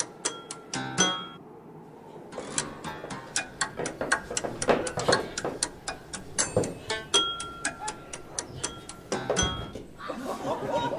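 A rapid, uneven series of sharp clicks and ticks, some with short ringing tones, breaking off briefly about two seconds in and then resuming.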